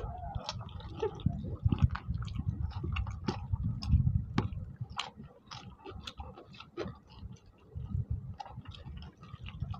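Two people eating rice and chicken curry by hand, with close chewing and many short wet smacking and clicking mouth sounds over uneven low thumps.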